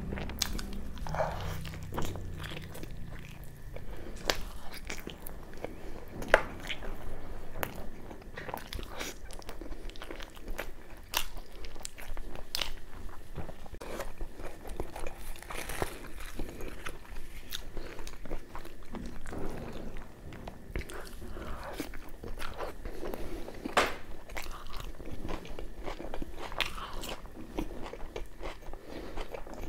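Close-miked mouth sounds of a man chewing puri soaked in mutton curry: irregular wet clicks and smacks, with a sharper click about six seconds in.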